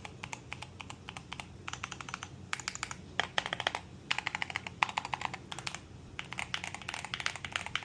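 Typing on a SteelSeries Apex Pro full-size keyboard with OmniPoint 3.0 magnetic switches: quick runs of key clacks separated by short pauses.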